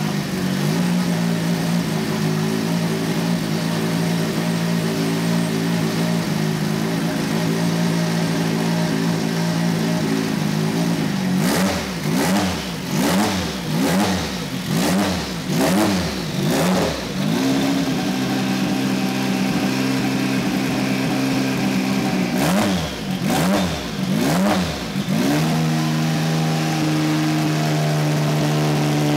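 Turbocharged race-car engine idling steadily, then blipped in a run of about six quick revs, settling briefly, blipped three or four more times, and settling to a steady, slightly faster idle.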